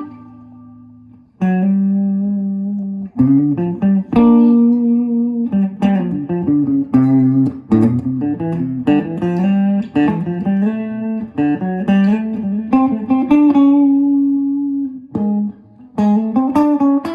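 Guitar played solo: a ringing note fades out, then held chords and quick melodic runs of single notes, with a brief break near the end.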